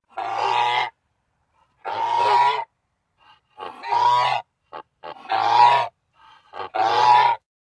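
Goose honking: five drawn-out honks, each under a second long, spaced about a second and a half apart, with a few short clipped notes between the later ones.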